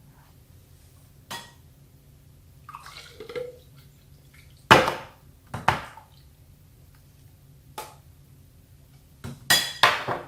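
Kitchen containers and utensils handled on a counter: a series of separate knocks and clinks, the loudest about five seconds in and a quick cluster near the end, with a brief liquid sound about three seconds in.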